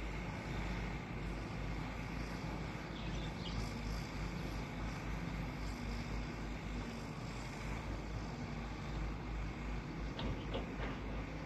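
Steady low diesel engine hum from excavators working, mixed with wind rumbling on the microphone. A few faint clicks near the end.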